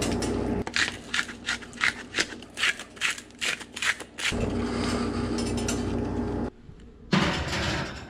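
Hand-twisted spice grinder grinding over a dish of fish: a quick run of short crunchy strokes, about four a second, lasting some three and a half seconds. A steady hum comes before and after the grinding, and a short noisy burst follows near the end.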